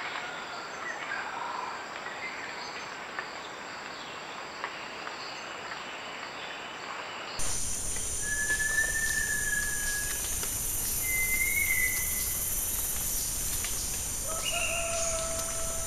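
Tropical forest ambience with faint bird and insect calls. About halfway through, the sound jumps louder with a steady high hiss, and wild birds give clear whistled notes over it: a long level whistle, a slightly rising one, and near the end a lower whistle with a higher note above it.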